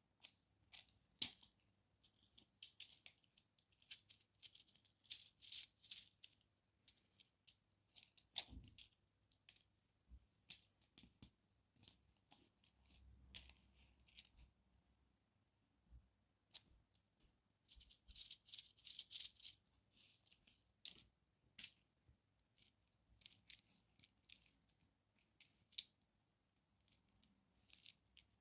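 Plastic LEGO Technic parts clicking and rattling as a model car chassis is handled, its wheels, suspension and gears moved by hand. There are scattered light clicks, with two busier spells of rattling, a few seconds in and again just past the middle.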